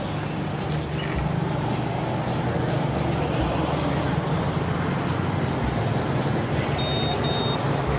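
A steady low motor rumble, like a vehicle engine running nearby, with two short high chirps near the end.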